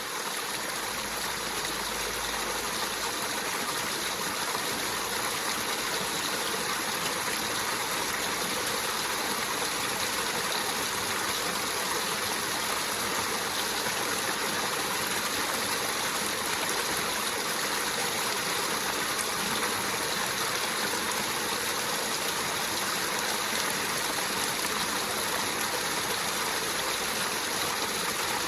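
Waterfall: a steady, even rush of falling and running water.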